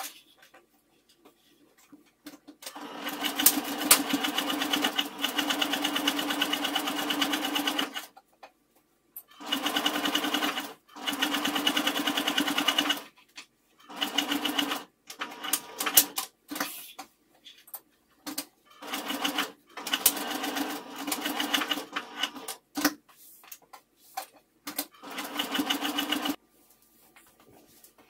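Electric sewing machine stitching in a series of runs with short pauses between them: a long run of about five seconds, then several shorter bursts. It is topstitching webbing straps onto a fabric bag panel.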